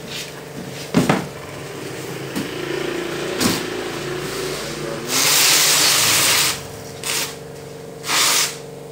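Handling of an unboxed air conditioner and its packing: a knock about a second in, then bursts of rustling or scraping noise, the longest and loudest lasting over a second near the middle, over a steady low hum.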